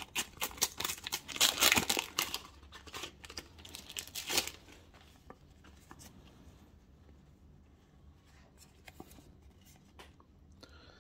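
Paper sticker packet being torn open and its wrapper crinkled, a dense crackle for about four seconds, loudest about two seconds in, then only faint scattered ticks of handling.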